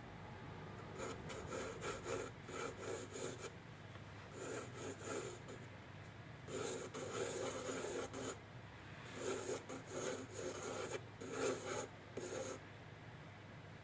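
Pencil scratching across sketchbook paper while sketching, in about six bursts of quick back-and-forth strokes separated by short pauses.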